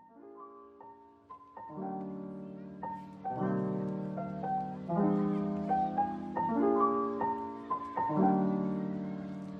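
Background music: a gentle piano tune, entering softly and growing louder after a second or so, with chords changing about every second and a half.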